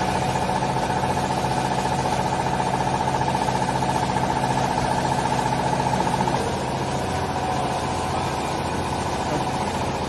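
A TCM vertical hydraulic baler's electric motor and hydraulic pump running with a steady hum. The tone shifts and the sound eases slightly about six seconds in.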